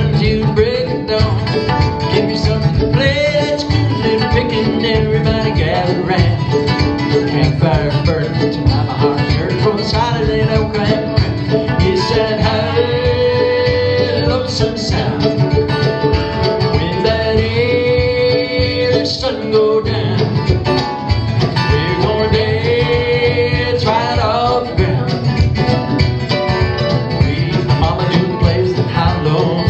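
Live acoustic string band playing bluegrass-style music blended with West African styles. Plucked strings on guitar and kamale ngoni keep a steady beat under a long held melody line that slides between notes.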